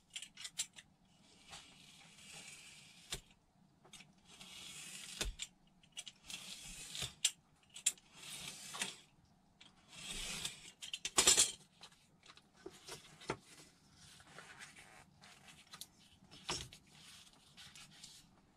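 Snap-off craft knife blade drawn through a foam glider wing along a steel ruler: several scratchy cutting strokes, each a second or two long, the loudest about eleven seconds in. Small clicks and knocks come between the strokes.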